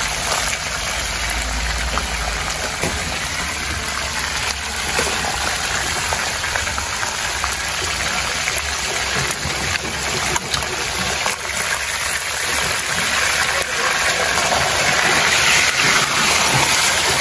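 Whole red snapper frying in hot oil in a steel pan: a steady, loud sizzle that grows louder over the last few seconds, with a few sharp clicks of a metal spatula and tongs against the pan.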